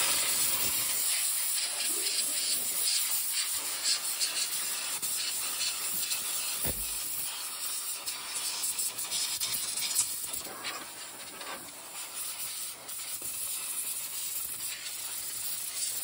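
Can of compressed gas duster spraying in one long, continuous hiss, its strength wavering as the jet is played over a refrigerator's condenser coils to blow the dust off.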